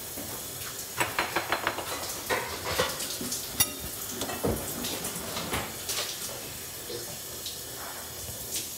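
Kitchen clatter: dishes and cutlery clinking and knocking, in a quick run of clinks about a second in, then scattered knocks.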